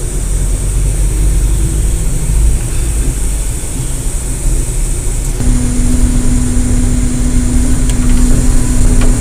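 Coach bus engine and road rumble heard from inside the moving bus, a heavy steady low rumble. About halfway through, a steady droning tone joins it and holds.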